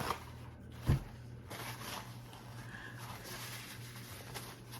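Quiet room tone with a faint steady hum, broken about a second in by one brief low thump or mouth sound.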